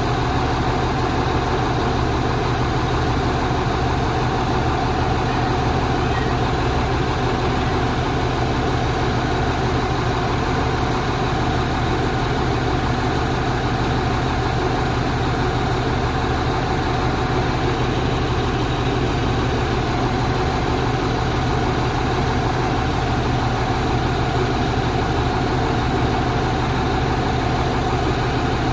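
Truck engine running steadily at an unchanging pitch, a continuous even hum with no revving or breaks.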